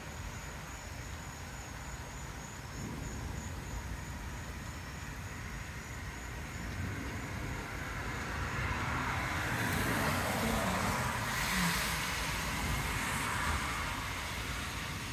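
A road vehicle passing, its tyre and engine noise swelling from about halfway through, loudest around two-thirds of the way in, then fading, over a steady low rumble.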